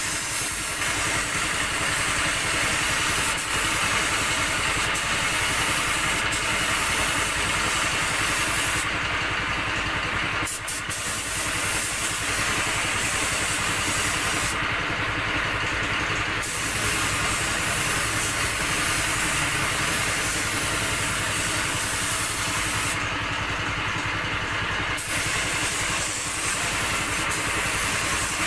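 Compressed-air paint spray gun hissing steadily as it sprays paint. Three times its high hiss cuts out for a couple of seconds while a lower steady noise carries on underneath.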